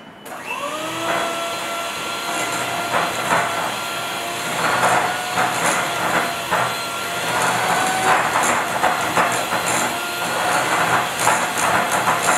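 Electric hand mixer starting up: its motor whine rises over the first second, then holds steady. The beaters clatter and rattle against the glass bowl as they whip buttercream of butter and icing sugar.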